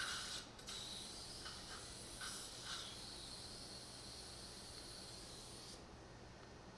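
Surgical suction tip hissing steadily as it draws fluid from the mouth, with a few short catches in the first three seconds. The hiss cuts off about six seconds in.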